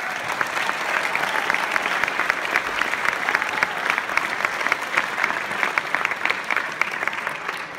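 Audience applauding: many hands clapping together, starting suddenly and holding steady, then easing off near the end.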